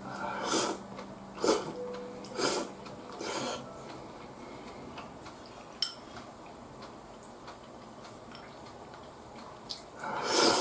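A person slurping ramen noodles from a bowl: four short slurps about a second apart, then a longer, louder slurp near the end.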